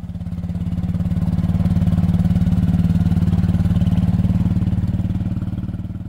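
A vehicle engine running steadily, heard from inside the cab as a low, pulsing hum that grows louder over the first couple of seconds.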